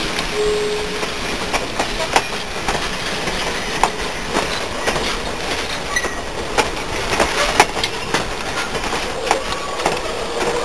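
Railroad passenger cars rolling past close by: steady rumble of steel wheels on the rails, with sharp irregular clacks over the rail joints and a short wheel squeal about half a second in.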